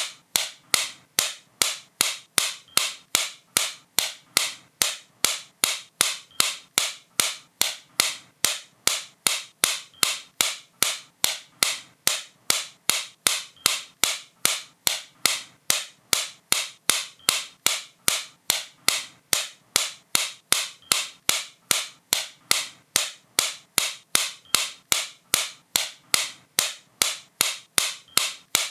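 A steady train of sharp, short clicks, about three a second, evenly spaced and each dying away at once.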